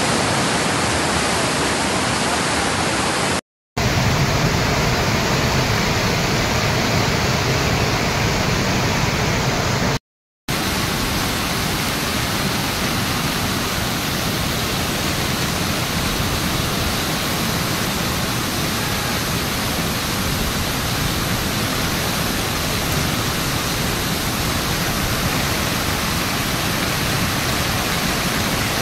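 Muddy floodwater of a swollen mountain stream rushing past in a steady torrent, cut by two brief silences about 3.5 and 10 seconds in.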